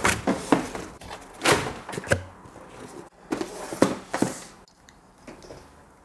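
Cardboard boxes being lifted out of a shipping carton and set down on a desk: a series of knocks and cardboard scrapes, with a dull thud about two seconds in, quieter in the last couple of seconds.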